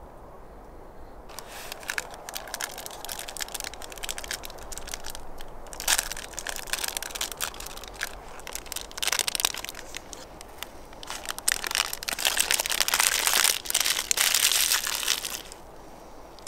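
Plastic biscuit wrapper crinkling and rustling as it is handled and opened, in uneven bursts that are loudest near the end.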